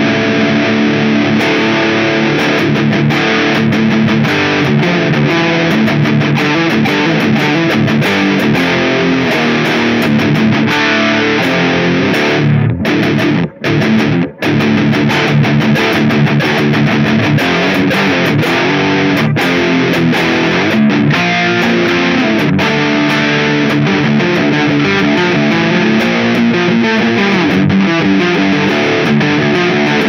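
Grote ST HSS custom electric guitar being played: a continuous run of picked notes and chords, broken by two brief sudden stops about halfway through.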